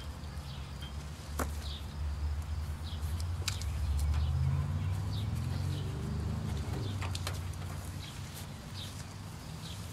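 Low rumble of the camera being handled and carried closer, swelling through the middle, with a few sharp clicks and small birds chirping faintly in the background.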